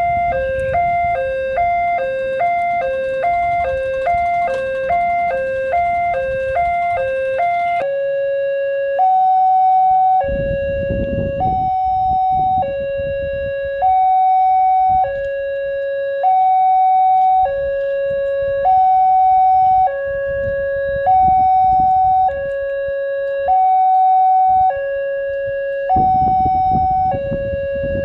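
Railway level-crossing warning siren sounding a two-tone high-low wail. It alternates rapidly, about three notes a second, then about eight seconds in switches to a slower high-low cycle with each note held a little over a second.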